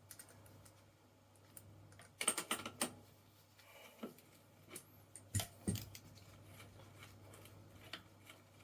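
Scattered light clicks and clatter of tools and bike parts being handled: a quick run of clicks about two seconds in, then a few single knocks, over a faint steady low hum.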